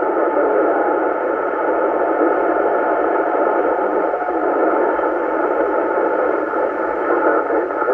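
Steady hiss and static from an FM receiver tuned to 27.405 MHz, the output of an 11-metre CB duplex repeater in Germany, with the squelch open on a weak, noisy long-distance signal.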